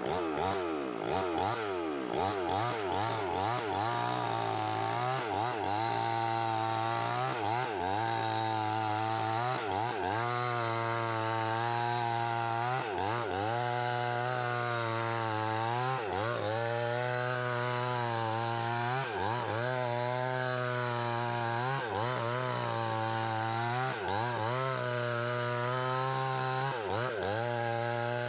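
Small gasoline chainsaw's two-stroke engine revving up and down, then running at high revs while cutting wood, its pitch dipping briefly and recovering every couple of seconds as the chain takes load.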